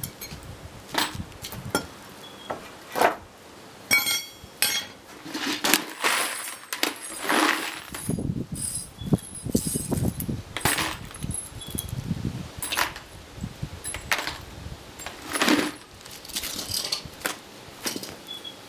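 Steel pallet nails and a nail-pulling bar clinking and knocking on concrete as nails are pried out and loose nails are gathered up by hand: a run of irregular sharp metallic clicks with duller handling knocks in between.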